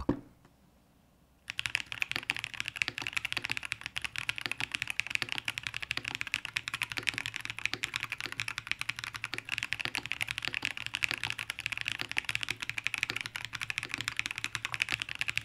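Razer BlackWidow V4 75% mechanical keyboard in stock form, with its factory Krytox-lubed Razer Orange switches, FR4 plate and Poron foam, being typed on quickly and continuously. The typing starts about a second and a half in, after a brief near silence.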